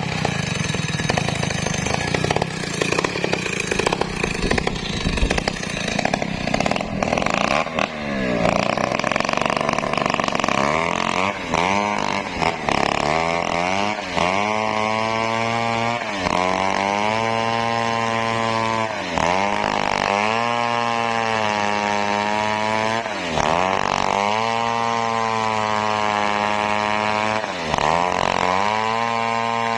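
Stihl 070 two-stroke chainsaw ripping lengthwise through teak. It runs rough and noisy for the first several seconds, then settles into a steady high engine note that sags briefly and recovers about every four seconds as the chain is worked through the cut.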